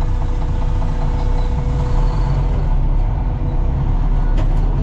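Truck engine running steadily, heard from inside the cab, with a couple of light clicks near the end.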